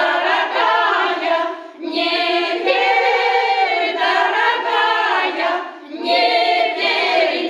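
Pensioners' choir of mostly women singing a Russian song, the phrases broken by short gaps about two and six seconds in.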